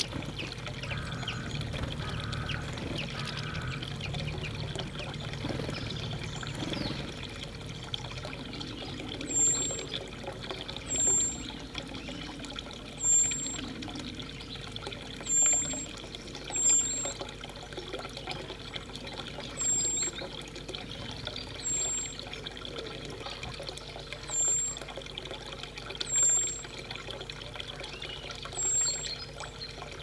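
Water trickling steadily, with short, sharp, high sounds repeating every two seconds or so from about a third of the way in.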